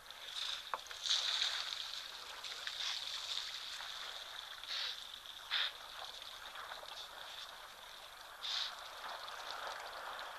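Outdoor bush ambience at a waterhole: a steady high-pitched hiss with short high calls several times.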